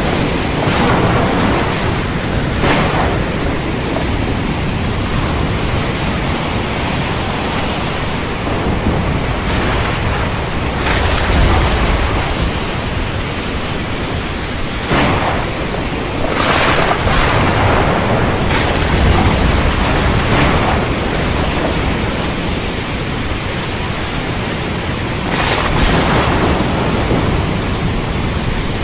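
Steady heavy rain with thunder rumbling again and again, the deepest rolls about 11 and 19 seconds in.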